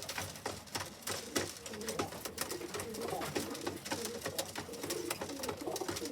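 Domestic racing pigeons cooing: low, wavering coos that start about two seconds in and carry on, over scattered sharp clicks and taps.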